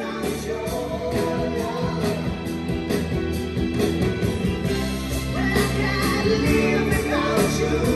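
A song with singing, played through JBL L96 loudspeakers driven by a vintage Luxman L-450 amplifier and heard in the room.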